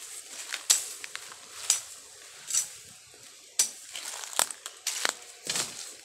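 Dry leaves and twigs crunching and snapping in a series of sharp crackles, roughly one a second.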